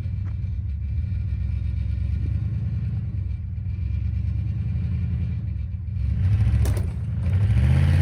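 2000 Dodge Ram 1500 pickup's engine running under load as it drags a heavy chicken coop through deep snow, revving up twice near the end with the pitch rising. A single sharp knock comes between the two revs.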